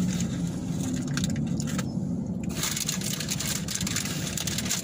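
Car cabin noise: a steady low engine and road rumble inside a car, with a rustling hiss joining about halfway through.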